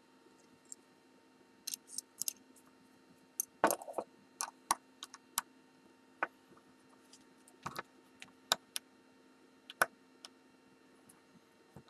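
Irregular small metallic clicks and scrapes of a tool working at the retaining C-clip on a Kwikset-clone lock cylinder, busiest and loudest a few seconds in.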